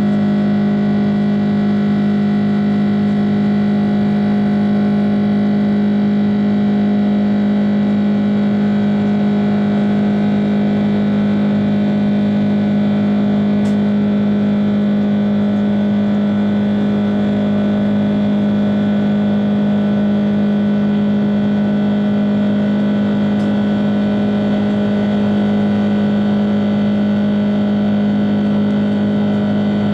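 Cabin noise of a Singapore Airlines Airbus A330-300 climbing out after takeoff, heard inside the cabin beside the wing-mounted Rolls-Royce Trent 700 turbofan: a loud, steady drone with a strong low hum and many steady tones above it.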